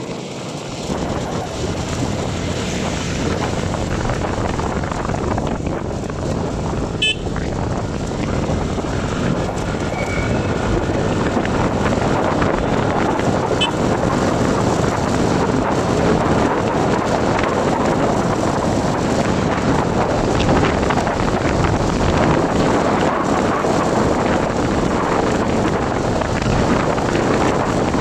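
Wind rushing over the microphone together with road and traffic noise from a vehicle riding along a road: a steady rushing that grows louder over the first dozen seconds and then holds.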